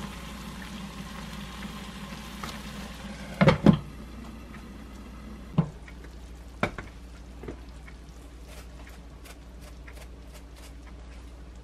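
Shrimp tomato pasta sizzling and simmering in a frying pan on a gas stove, with a few sharp knocks of a glass lid against the pan, the loudest pair about three and a half seconds in.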